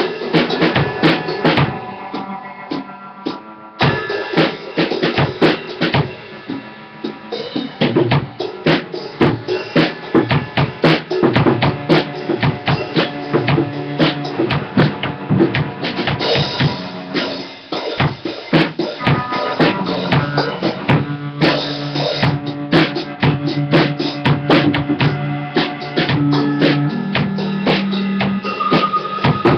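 Drum kit played steadily, a dense run of bass drum, snare and cymbal strikes. Low held notes sound under the drumming in the second half.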